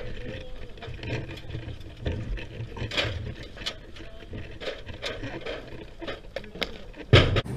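Aluminium fire-service extension ladder being raised with its halyard: irregular metallic clicks and rattles as the fly section slides up the bed section, with a louder knock near the end.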